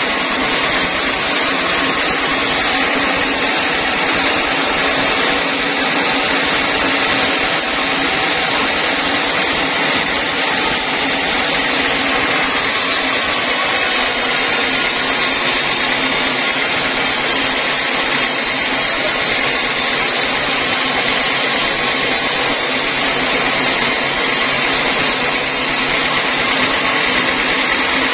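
Band sawmill running, its band blade sawing lengthwise through a squared timber: a loud, steady machine noise with a high sawing hiss that grows brighter about halfway through.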